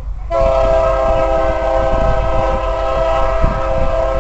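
Air horn of an approaching BNSF diesel locomotive, one long steady blast sounding a chord of several notes that starts about a third of a second in.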